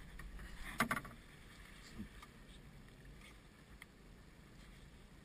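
Steady sea and wind noise around a small open boat, with two sharp knocks in quick succession about a second in and a fainter knock a second later.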